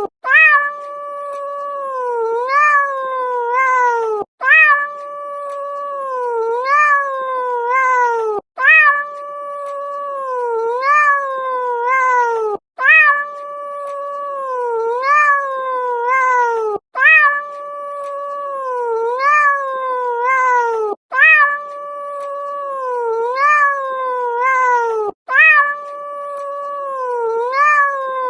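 Domestic cat meowing in long, drawn-out, wailing meows that rise and fall in pitch. The same run of meows repeats about every four seconds, with a short break between each run.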